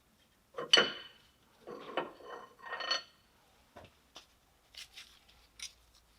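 Metal parts and tools clinking and clattering as they are handled: three clusters of clatter in the first three seconds, the first the loudest, then a few lighter clicks.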